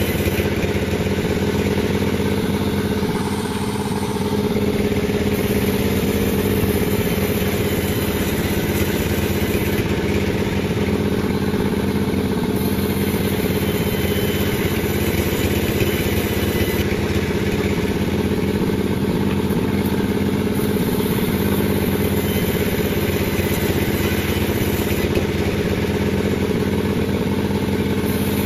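Panda36 sawmill's motor running steadily, with a slight dip about three seconds in.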